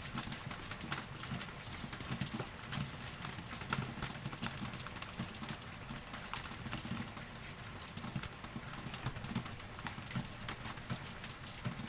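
Rain falling, heard as a steady hiss full of many separate drops tapping and dripping at an irregular, uneven pace.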